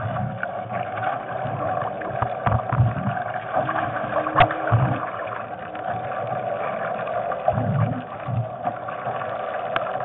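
Bladerider Moth hydrofoil dinghy under sail, with water rushing along the boat over a steady hum and irregular low thumps. Sharp knocks from the boat sound about four and a half seconds in and again near the end.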